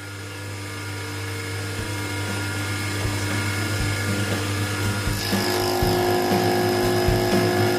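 Milling machine spindle driving a two-insert carbide dovetail cutter through hard steel: a steady machining whine made of several fixed tones over a low hum. It grows louder through the first seconds, and a brighter ringing tone joins about five seconds in as the cutter bites harder.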